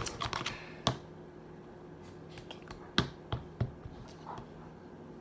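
Spoon stirring slime in a bowl, clicking and tapping against the bowl in a dozen or so sharp, irregular clicks.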